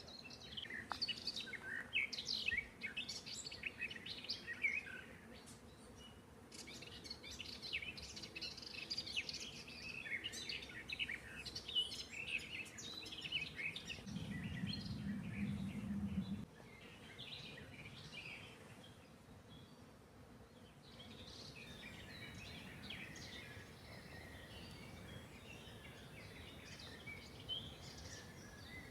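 Several songbirds singing and chirping in a forest chorus, busiest in the first half and thinning out later. Around the middle, a low rumble lasts a couple of seconds and cuts off suddenly.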